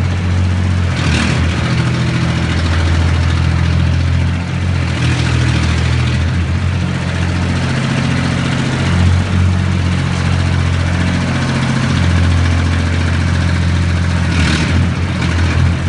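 Pile driver's engine running under varying load, its speed stepping up and down several times. Brief bursts of hiss come about a second in, midway through and near the end.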